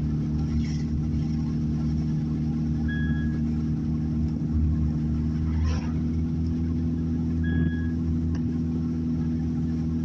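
Car driving at a steady speed, heard from inside the cabin: a steady low hum of engine and road. A short high beep sounds twice, about four and a half seconds apart.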